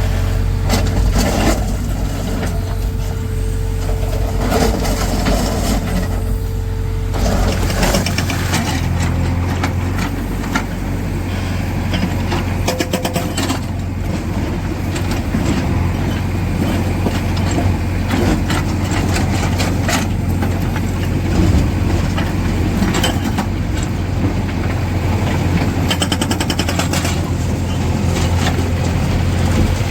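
Tata Hitachi Shinrai backhoe loader's diesel engine running steadily under load, with several spells of rapid hammering from its hydraulic rock breaker.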